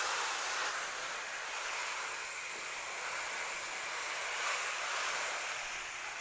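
Water spray hissing steadily and pattering onto large broad plant leaves while the plants are watered.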